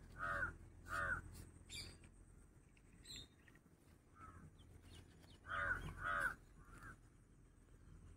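A crow cawing: a quick run of three harsh caws, then after a pause another run of two or three caws about five and a half seconds in.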